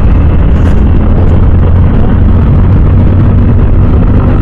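Loud, steady wind rumble on a helmet-mounted camera microphone from riding a motorcycle at about 60 km/h, with motorcycle riding noise underneath.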